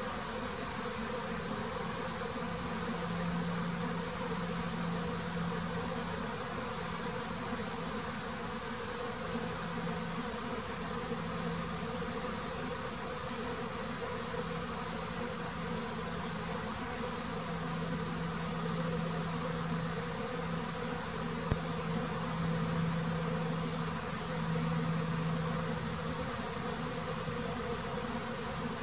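Honeybees buzzing at the hive, a steady hum that swells and eases. Over it, a high-pitched chirp repeats about twice a second.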